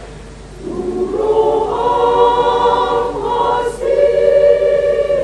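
Women's church choir singing in sustained chords: after a short pause the voices come in about a second in, swell, break briefly, and then hold a long chord near the end.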